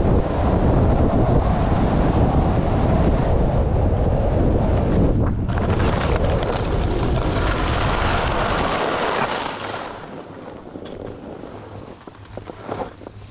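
Wind rushing over the microphone of a skier's camera during a fast downhill run. It drops off sharply about ten seconds in as the skier slows down among other skiers at the lift.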